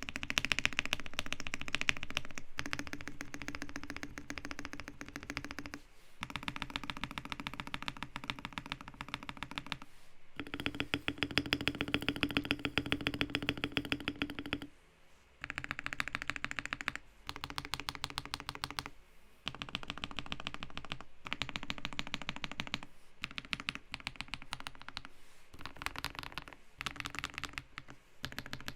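Fast typing on a Keydous NJ80 custom mechanical keyboard with lubed KTT Kang White V3 linear switches, a brass plate and PBT keycaps: dense runs of key clacks broken by several short pauses.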